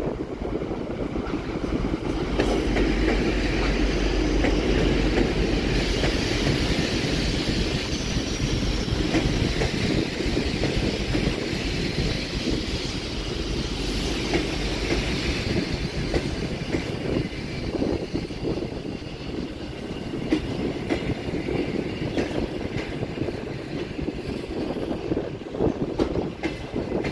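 TEP70 diesel locomotive passing close, its V16 diesel engine giving a heavy low rumble in the first few seconds. Passenger coaches then roll past slowly as the train arrives, with wheels clicking over rail joints and a brief high wheel squeal about halfway through.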